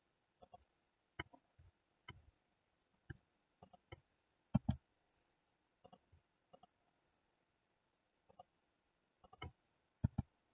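Faint, scattered clicks of a computer mouse and keyboard, a dozen or so at irregular intervals. The loudest come about four and a half seconds in and near the end.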